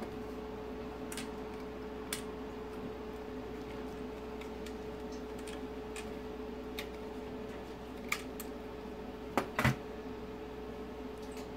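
A few small clicks and taps of plastic being handled as the speedometer's plastic trip-reset shaft is unclipped from its catch and lifted off the circuit board, two sharper clicks close together near the end, over a steady faint hum.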